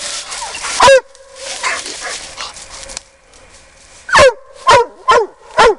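Dog barking at a hole in a tree trunk: one bark about a second in, rustling noise, then four quick barks near the end, each falling in pitch.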